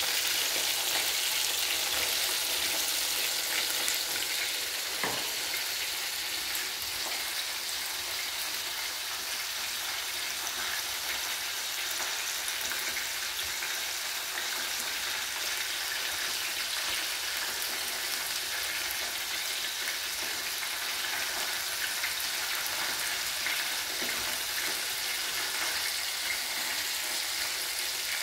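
Chicken pieces, already golden brown, deep-frying in hot oil in a pot: a steady sizzle with fine crackling throughout.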